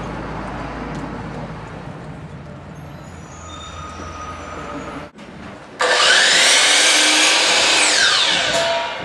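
Steady construction-site machinery noise with a low hum, then, after a cut about five seconds in, a power saw runs loud for about three seconds and winds down, its pitch falling.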